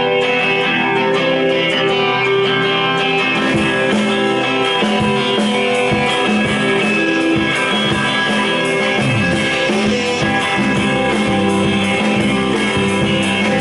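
Live rock band playing a song's instrumental intro: strummed electric guitar chords, with the bass and drums joining about three and a half seconds in.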